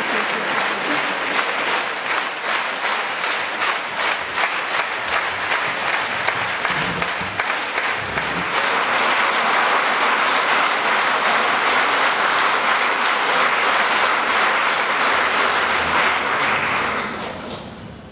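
Concert audience applauding. Separate claps stand out at first, then the applause grows denser and louder about halfway through, and dies away near the end.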